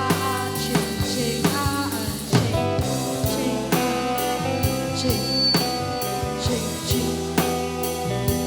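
Recorded song playing, with a drum-kit beat, bass and melody.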